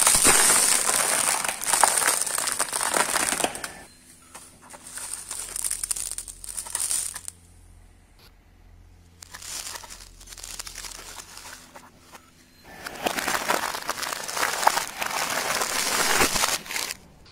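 Car tyre rolling over a plastic packet of red kidney beans: a long, loud crinkling and crackling of plastic as the packet is crushed and bursts. A quieter stretch with a low steady hum follows, then a second long bout of crackling late on as the tyre crushes another red plastic package.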